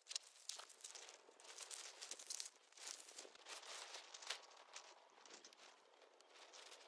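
Faint rustling and crinkling of a dome tent's fabric as the tent is pulled down and collapsed, with scattered short crunches of gravel underfoot.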